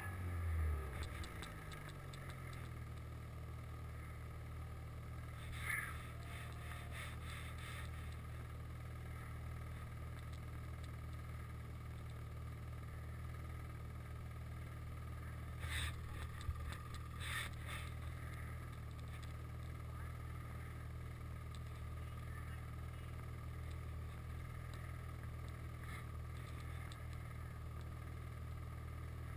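Snowmobile engine idling steadily, its revs falling back to idle in the first couple of seconds. A few short clicks come about six seconds in and twice more near the middle.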